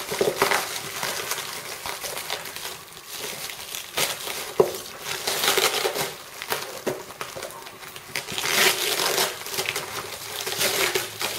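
Packaging wrappers crinkling and tearing as a parcel is unwrapped by hand, in irregular bursts. A sharp click is heard about halfway through.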